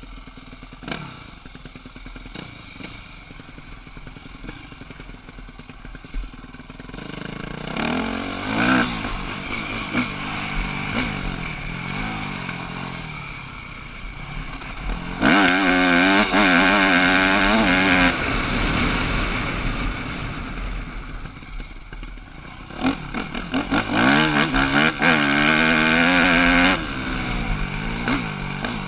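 Yamaha YZ250F four-stroke single-cylinder dirt bike engine heard from the rider's helmet: low and quiet for the first several seconds, then revving up and down. Twice, about halfway and again near the end, it is held at high revs for a few seconds and then the throttle is shut off abruptly.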